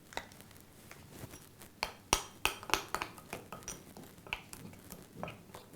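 A spoon clinking and scraping against a bowl while stirring batter: a run of irregular clinks and taps, the loudest about two seconds in.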